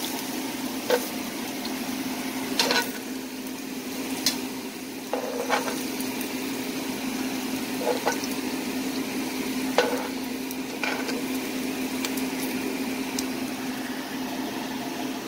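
Potato and carrot slices sizzling in oil in a stone-coated frying pan, over a steady low hum. Metal tongs click against the pan several times as the slices are turned.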